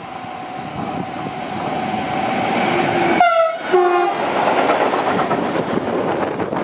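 Bombardier TRAXX class 186 electric locomotive passing at speed with a freight train, sounding its horn in two short blasts about three seconds in. The rumble and clatter of the freight wagons rolling past grow louder after that.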